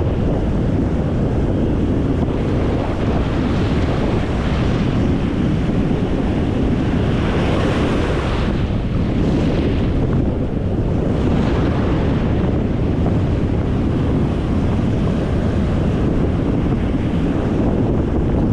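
Strong wind buffeting the microphone over surf on a stormy beach: a steady, loud rushing noise, its hiss swelling a few times near the middle.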